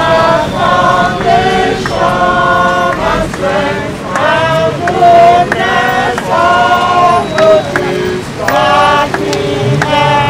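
A group of voices singing together in phrases of held notes, with short breaks between the phrases.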